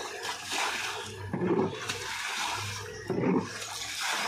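Water scooped with a container and thrown against a pipe outlet, splashing loudly about every second and a half, over a steady low hum.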